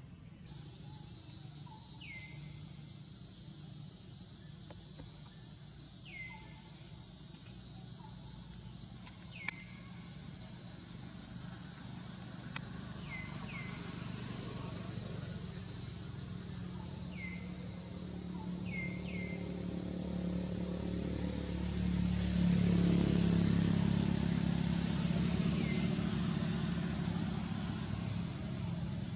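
Outdoor ambience: a steady high insect drone, a bird's short falling chirp repeating every few seconds, and a low engine rumble of a passing vehicle that builds after about twenty seconds and is the loudest sound.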